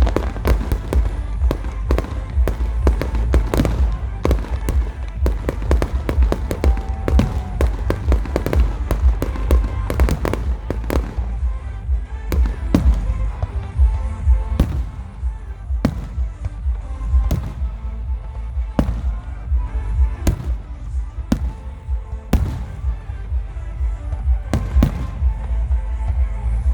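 Fireworks bursting, a dense rapid barrage of bangs for about the first ten seconds, then separate booms every second or two, over a steady deep rumble.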